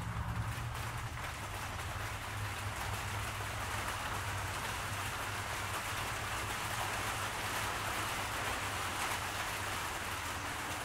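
A steady hiss with a low hum beneath it, unchanging throughout: machine-shop background noise.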